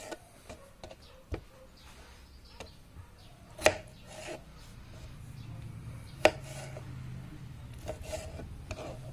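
Kitchen knife slicing through a tomato and knocking down onto a plastic cutting board: a few sharp knocks, the loudest about six seconds in, with softer cutting sounds between them. A low steady hum comes in about halfway.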